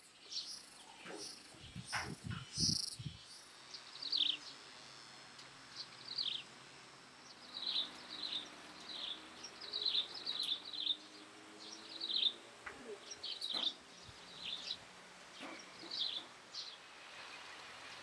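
A bird chirping over and over, short quickly falling notes, with a few dull knocks about two to three seconds in.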